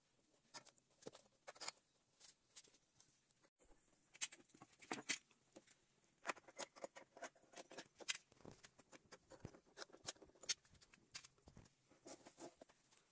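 Faint, irregular clicks and taps of steel bar clamps and teak boards being handled as glued boards are clamped together edge to edge.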